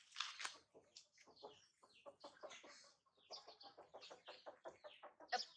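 Faint animal calls: a rapid series of short clucks, several a second, with a louder one just before the end.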